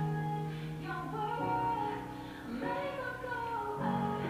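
Music: a song with a female voice singing long held notes over instrumental accompaniment.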